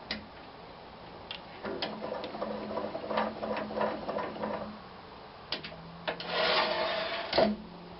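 Workshop handling sounds at a wood lathe: a few sharp clicks, then several seconds of fast mechanical ticking over a low hum, then a louder rattle that ends in a sharp knock, as the turned piece is taken off to be reversed in the chuck.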